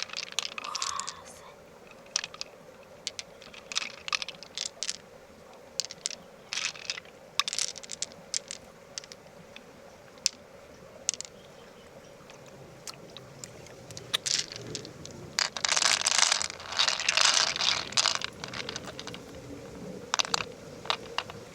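Hard shell clicking and tapping, with a dense stretch of scraping about three-quarters of the way through, as a clam shell is worked open with a tool.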